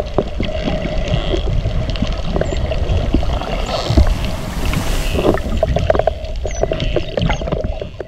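Underwater sound of dolphins: a dense patter of clicks and a few short whistles over a steady hum and low rumble.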